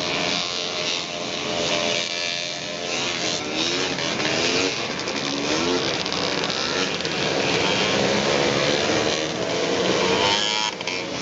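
Several single-cylinder racing snowmobile engines running hard, their pitch rising and falling.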